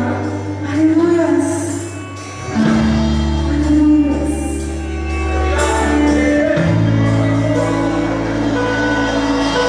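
Live worship music: long held keyboard and bass chords that change about every four seconds, with a voice singing a slow, wavering line over them.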